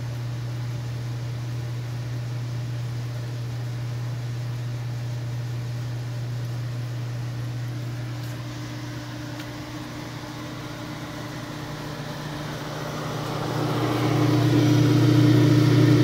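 Lincoln 1132 conveyor pizza oven running: a steady low hum from its blower fans and conveyor drive, growing louder about three-quarters of the way through.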